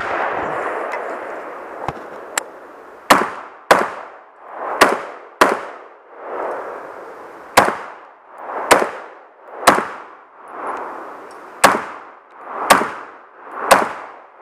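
Rifle shots: about ten sharp reports, the first four in two quick pairs about half a second apart, then single shots roughly a second apart, each with a short echo.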